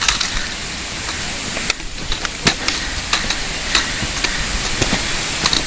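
Steady rushing of a monsoon waterfall, with scattered short clicks and knocks over it.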